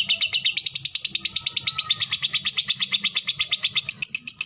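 Lovebird singing a long, fast string of high, evenly spaced chirps, about a dozen a second, in the sustained rolling trill that keepers call 'ngekek'. It stops abruptly near the end.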